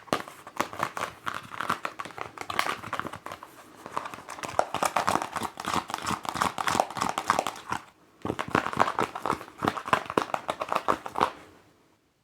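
Fingers tapping rapidly on a mask, many quick taps close together, with a short break about eight seconds in; the tapping stops about a second before the end.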